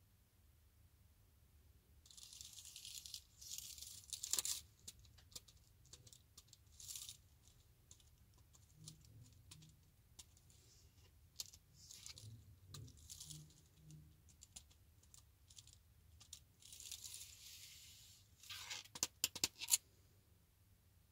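Keys of an ultra-thin wireless Bluetooth keyboard being pressed: soft, scattered clicks, with two stretches of hissy rubbing from hands handling the keyboard. Near the end comes a quick run of louder clicks.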